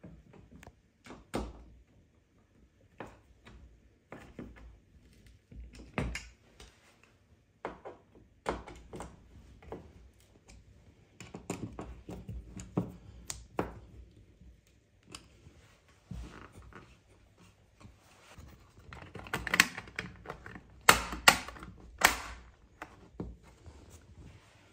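Irregular small clicks and knocks of hand work on a plastic-and-metal TV wall plate: a spirit level set against it and its screws turned by hand with a screwdriver. Near the end come a few louder, sharper clicks, as the plastic cover is clipped onto the plate.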